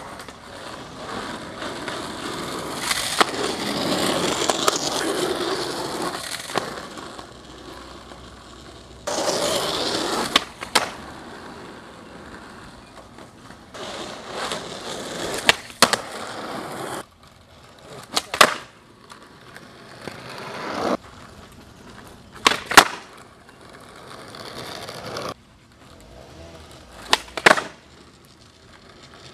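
Skateboard wheels rolling over rough asphalt, with sharp wooden clacks of the tail popping and the board landing on flat ground tricks, often in quick pairs. The rolling noise starts and stops abruptly several times as the clips change.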